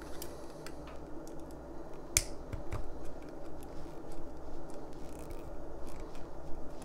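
Pliers gripping and bending a thin steel spring tab on a Ford Model A distributor body: a few light metallic clicks and small handling taps, the clearest about two seconds in.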